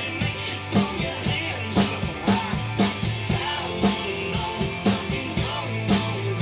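Acoustic drum kit played along to a recorded rock-country song with singing and guitar, keeping a steady beat of about two strong hits a second.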